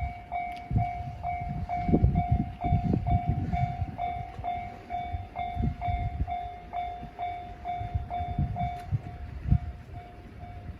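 Japanese railway level-crossing alarm in the JR standard tone: an electronic bell dinging steadily, about two and a half dings a second. Under it is a loud, uneven low rumbling.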